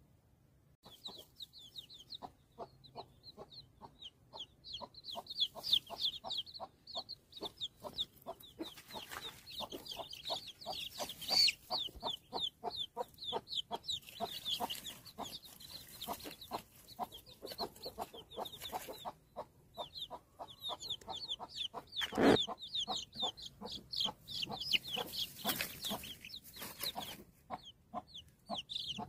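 A brood of newly hatched chicks peeping in rapid, high-pitched chirps, many at once, over the low, repeated clucking of the broody mother hen. One sharp knock sounds about three-quarters of the way through.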